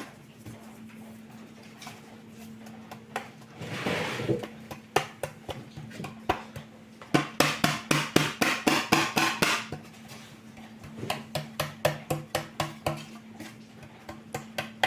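Rapid, rhythmic knocking of a kitchen utensil against a bowl, about three to four strokes a second, in two runs from about halfway through, over a steady low hum.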